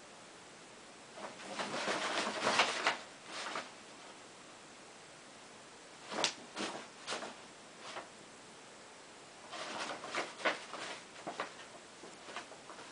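Brown paper shopping bag crinkling and rustling as a cat paws at it and pushes its way inside, in three bursts of a couple of seconds each, full of short sharp crackles.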